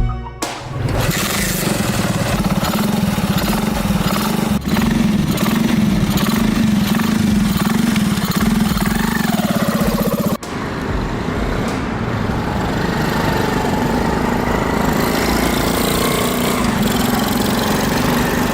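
Honda 110cc motorcycle's single-cylinder four-stroke engine running steadily, with a momentary drop about ten seconds in.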